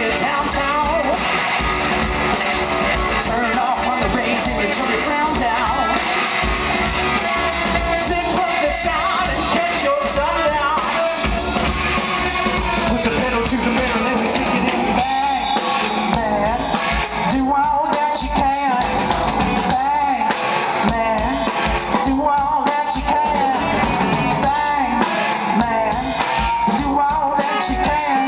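Live rock band playing: electric guitar, bass guitar and drum kit through a club PA, loud and steady. About halfway through, a lead melody that wavers in pitch comes to the front.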